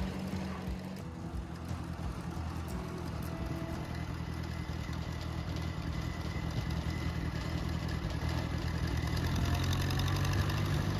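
Engine idling steadily, with a small shift in its note about a second in and again near the end. A cicada chorus hums faintly behind it.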